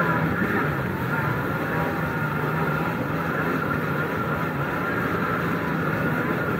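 Two-stroke engine of a 1998 Kawasaki SXi Pro stand-up jet ski running steadily at part throttle, over the rush of water along the hull. This is around a third of the throttle, where the ski starts bouncing (porpoising) on the water.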